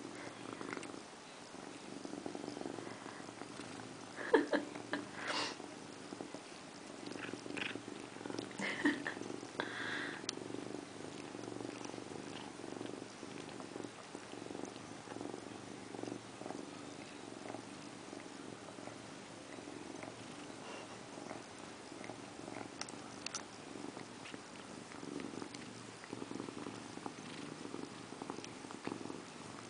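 Domestic cat purring steadily at close range while grooming its paw, with a few short clicking licks in the first ten seconds.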